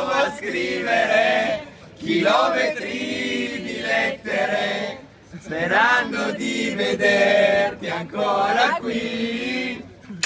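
A group of men singing and chanting together without accompaniment, loud and in short phrases broken by brief pauses.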